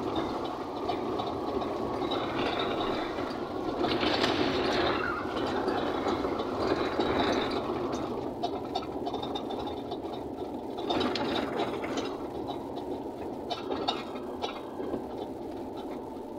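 Truck engine running while the cab rattles and jolts over a dirt road, heard from inside the cab, with a few louder surges of rattle and road noise.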